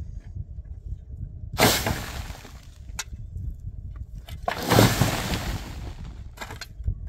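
Shovels biting into dry, stony soil. There are two longer gritty scrapes, about one and a half and five seconds in, with short sharp clinks of the blades on stones between them, over a low steady rumble.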